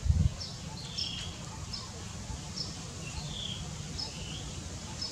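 A bird calling in the background, repeating a short high chirp roughly once a second, each call a sharp tick followed by a lower note, over a steady low outdoor rumble. A brief low thump comes right at the start.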